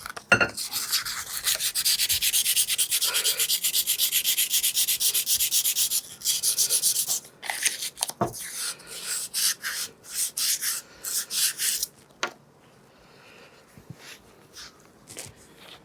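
Emery paper wet with WD-40 rubbed back and forth on the chrome of a Honda CT110 front fork tube, knocking down rust and roughness. It starts with fast, even strokes, about five a second, turns to slower, broken strokes about seven seconds in, and stops about twelve seconds in.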